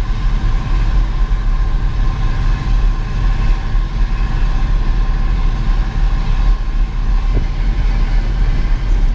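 Steady low rumble of road and tyre noise inside the cab of a pickup being towed on a rope, its own engine dead from running out of fuel.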